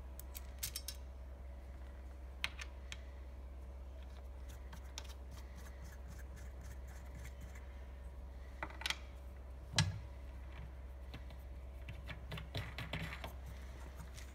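Light, scattered clicks and taps of the handle, washers and fixing knobs being fitted to the body of a Blue Evolution S+ steam-vacuum cleaner, with one louder knock about ten seconds in. A steady low hum runs underneath.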